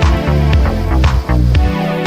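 Background electronic music with a heavy bass beat, a hit about every half second.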